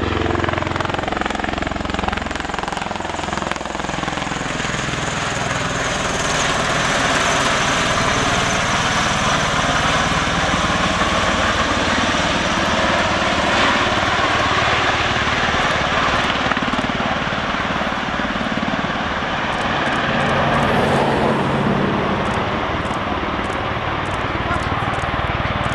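Bell Boeing MV-22B Osprey tiltrotor's proprotors and turboshaft engines, a loud continuous whooshing drone as it comes in to land, with tones that slowly slide up and down in pitch.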